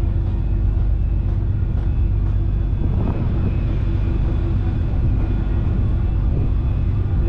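Tourist boat's engine running steadily: an even low drone with a steady hum over it.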